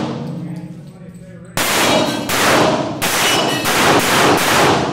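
A rapid string of semi-automatic pistol shots, starting about a second and a half in and coming roughly one every half second. Each shot echoes off the concrete walls of an indoor range.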